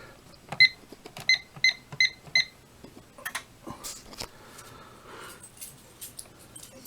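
Fire alarm annunciator keypad beeping as keys are pressed to enter the code for a system reset: five short high beeps, one on its own and then four in quick succession, followed by scattered clicks of button presses and handling.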